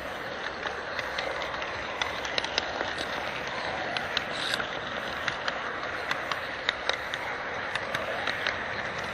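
HO-scale model freight train rolling along the track, heard from a camera riding on the train: a steady rolling rattle with irregular small clicks from the wheels on the rails.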